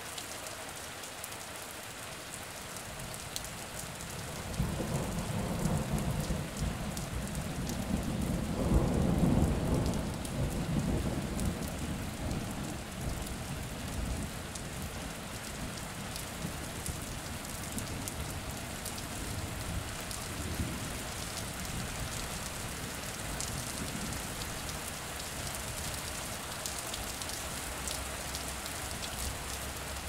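Steady rain falling, with a long roll of thunder that swells about four seconds in, is loudest a few seconds later and rumbles away over the following few seconds.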